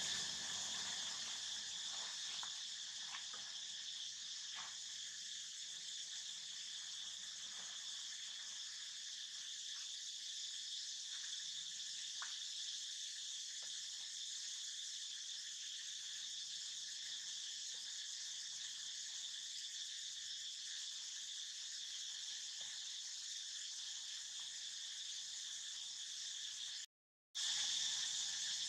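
Steady, high-pitched insect chorus droning without a break, with faint scattered ticks and rustles in the first half. It cuts out for a moment near the end.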